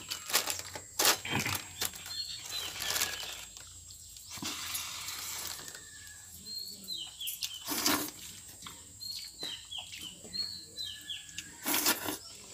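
Eating by hand from metal bowls: short clicks, knocks and wet squelches as fingers mix watered rice and pick at a small bowl of vegetables. Birds chirp outside throughout, in short, high, quickly repeated calls.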